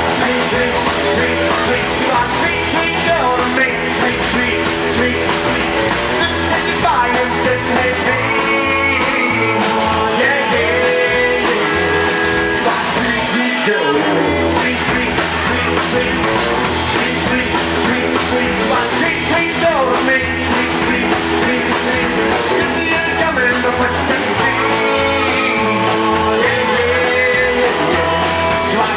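Live rock-and-roll band playing: electric guitar and acoustic guitar over a steady beat.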